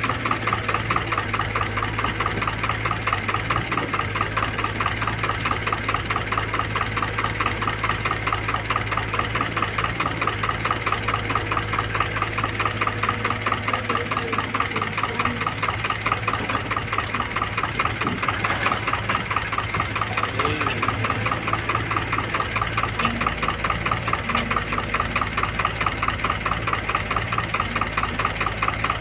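Heavy diesel engine running steadily at constant speed, with a fast, regular chugging beat.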